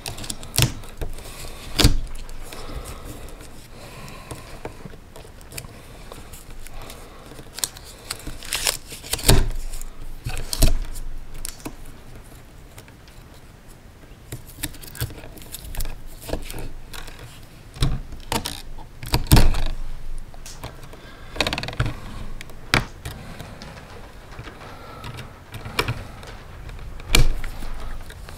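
Wire strippers and pliers clicking and rattling as electrical wire is worked at a plastic outlet box, with scattered sharp clicks and knocks at uneven intervals.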